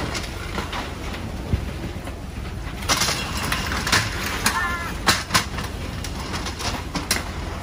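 Boat engine running with a steady low rumble, with scattered sharp knocks and a short run of bird chirps about four and a half seconds in.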